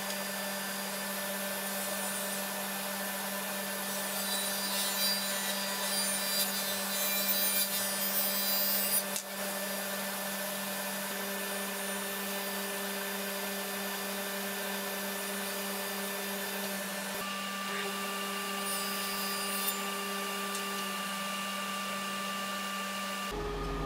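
Table saw running steadily and ripping a wooden strip. The blade's cutting noise rises over the motor hum from about four seconds in and stops about nine seconds in. After that the saw runs on without cutting.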